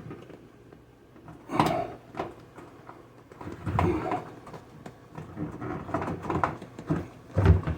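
Hands working on a front-load washer's door lock and its wiring: scattered knocks, clacks and clicks of parts being handled and fitted, the loudest about a second and a half in and near the end.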